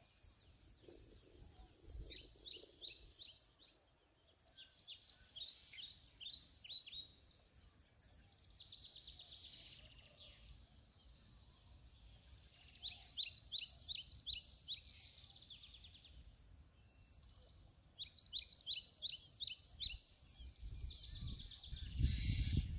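Birds singing: several phrases of quick, repeated, downward-sweeping chirps, each phrase lasting a second or two, with a low rumble near the end.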